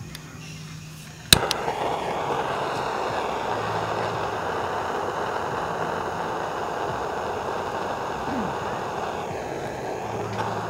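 A jet-flame torch lighter ignites with a sharp click about a second in, then hisses steadily as its flame is held to split firewood kindling.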